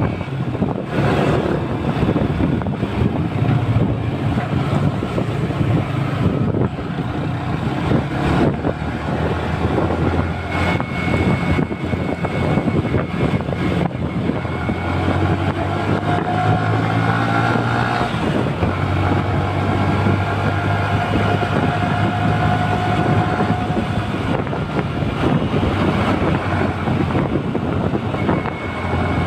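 Motorcycle engine running steadily while riding, with the engine note shifting as the throttle changes, over continuous road and wind noise.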